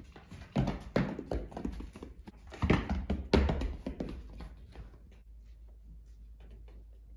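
Young goat kid's small hooves clattering and tapping on the kitchen floor as it runs and jumps, a quick irregular run of clicks and knocks that thins out after about five seconds.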